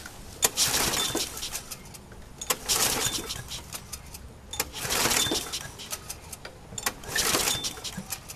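Briggs & Stratton lawn mower engine being pull-started on its recoil starter, four pulls about two seconds apart, each a click and a second-long whirr of rope and cranking engine, without the engine catching. The owner puts the no-start down to bad stale gas gumming the carburetor bowl.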